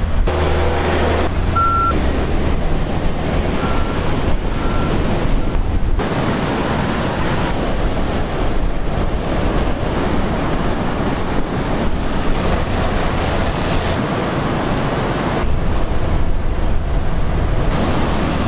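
Excavator and dump-truck engine running while sand is loaded, with wind buffeting the microphone and surf behind; the sound changes abruptly several times.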